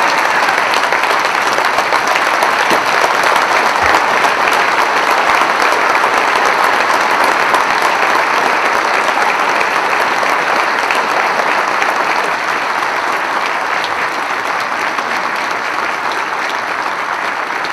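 A large audience applauding steadily in an auditorium, the clapping easing off slightly near the end.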